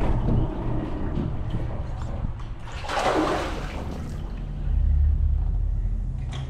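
Water sloshing and splashing as a hooked sheepshead thrashes at the surface beside a kayak, with a louder splash about three seconds in. A low rumble runs under it and swells around five seconds in.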